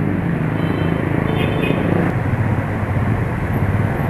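Honda CS1's small single-cylinder four-stroke engine running at low speed in dense, slow traffic. It makes a steady low hum over the rumble of the surrounding motorbikes and cars.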